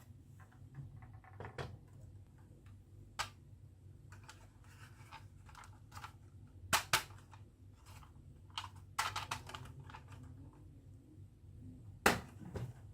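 Marbles running down a marble run, clicking and clacking against the track pieces in scattered sharp knocks with faint rattling between. The loudest clacks fall about two-thirds of the way in, as a quick pair, and again near the end, over a faint steady low hum.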